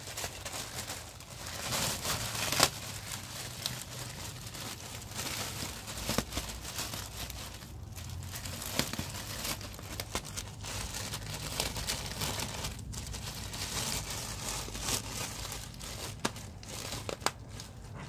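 Clear plastic bag crinkling and crackling continuously as a bichon frisé tears at the wrapping around an artificial pine wreath, with many sharp crackles; the loudest comes about two and a half seconds in.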